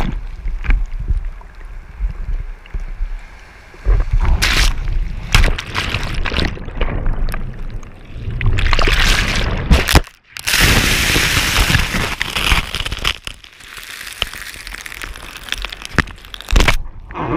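Seawater sloshing and splashing over a handheld action camera at the waterline, with heavy irregular rumbling buffets on its microphone. Just after ten seconds there is a brief drop-out, followed by a stretch of bright rushing hiss.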